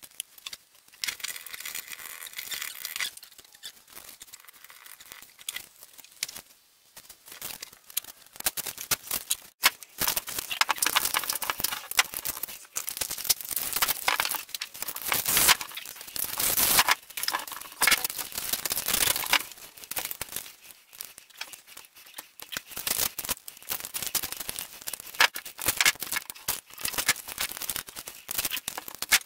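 Loose cassette tape ribbon crinkling and rustling as it is handled and packed into a clear plastic bowl mold, with plastic containers clicking against one another. Near the start, a short pour of liquid resin into a plastic measuring cup.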